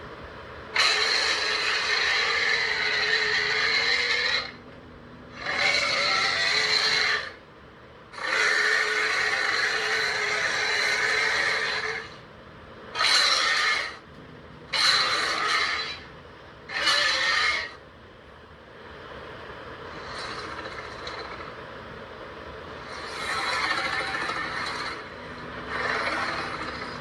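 Giant monster roar sound effects: three long, harsh roars, then three short roars about two seconds apart, then quieter growls near the end.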